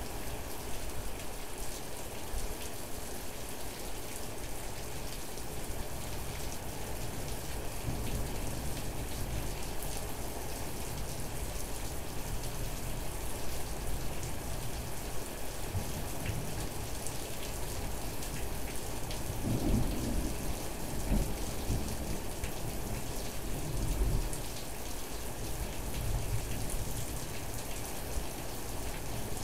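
Steady rain falling, with low rumbles of thunder swelling up several times, the loudest about twenty seconds in and again a few seconds later.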